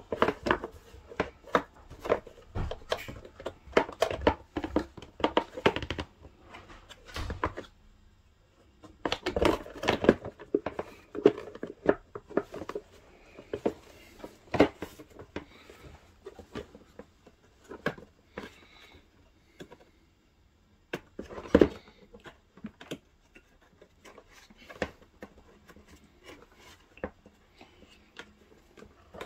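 Irregular plastic clicks, knocks and rustles as a Tefal steam generator iron is handled and set down, with a couple of short pauses.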